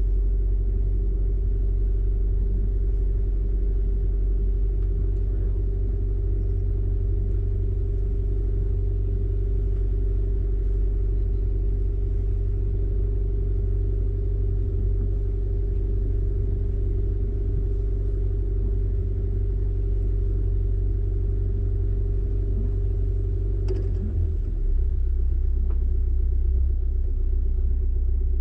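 A sailing yacht's inboard engine running steadily as the boat motors along, a continuous low rumble with a steady hum over it. About 24 seconds in there is a click and the low rumble shifts slightly.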